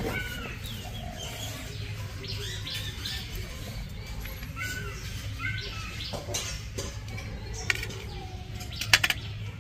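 Small birds chirping in short, repeated calls, with a few sharp clicks near the end.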